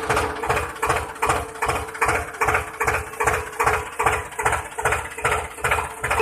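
A hand tool working wood in steady back-and-forth strokes, about two and a half a second, with a faint steady hum underneath.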